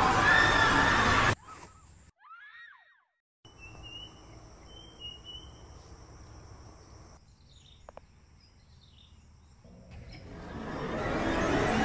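A loud voice-like sound cuts off abruptly just over a second in, leaving quiet jungle ambience: bird chirps, a steady high insect drone and a single faint click. Near the end a rushing noise swells up.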